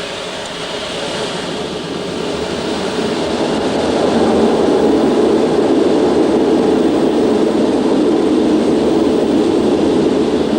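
Concorde's four Olympus 593 turbojets spooling up to takeoff power, heard from the flight deck as a dense, deep rush. It grows louder over the first four seconds, then holds steady as the takeoff roll begins.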